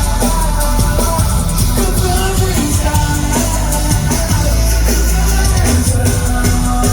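A rock band playing live at full volume, with drums and guitars driving through an instrumental passage between sung lines.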